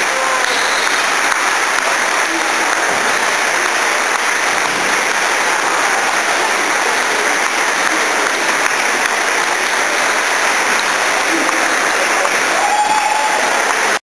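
Steady applause from a large crowd of spectators, many hands clapping at an even level.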